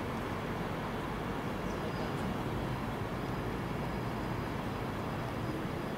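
Steady rumble of a train on the line through the station, even and unbroken, with no horn or distinct clanks.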